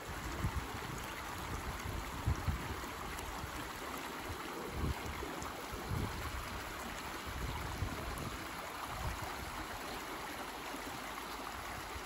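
Shallow, rocky stream running steadily over stones. Low gusts of wind buffet the microphone now and then, most strongly about half a second and two and a half seconds in.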